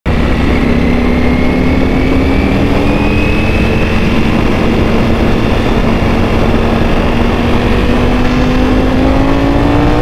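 Ducati Panigale V4S's V4 engine, breathing through an Akrapovic full-system exhaust, pulling hard under acceleration in third gear. Its pitch climbs slowly and rises faster near the end.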